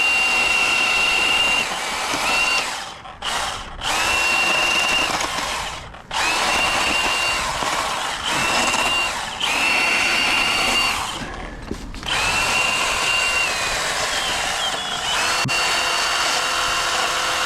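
Milwaukee Hatchet battery-powered pruning saw running in about five bursts of a steady high whine, with short pauses between them as it cuts brush.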